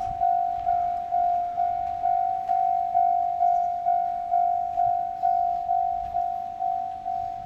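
Japanese level-crossing warning bell ringing in a steady rhythm, a little over two strikes a second, each a single ringing tone fading into the next: the crossing signal that a train is approaching.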